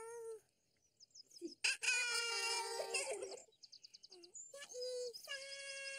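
Several drawn-out, high-pitched vocal calls, each held steady on one pitch. The loudest and longest lasts about a second and a half, and rapid high chirps come in between the calls.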